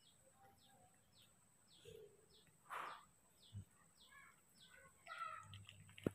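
Faint bird chirping, a short high falling note repeated about twice a second, with a brief rustle about halfway through.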